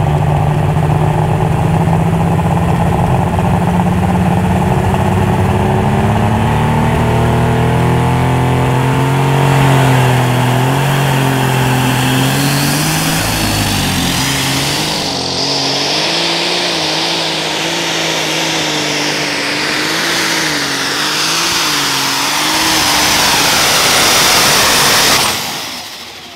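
Unlimited super stock pulling tractor's engine running flat out under load down the track. Its pitch climbs steadily for about the first ten seconds, then wavers up and down, before the engine cuts off abruptly near the end.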